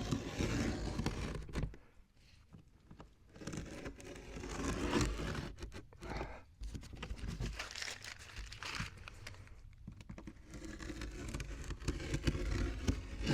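Flashing tape being handled: the roll pulled and its backing crinkling and tearing in several separate bursts.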